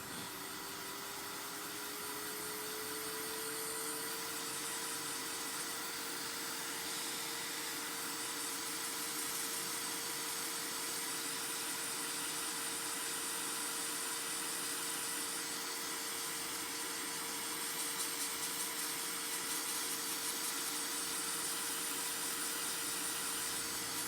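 Hot-air gun blowing, its fan motor finishing its spin-up about two seconds in and then running at a steady pitch under an even hiss of air, the usual way to soften a phone display's adhesive.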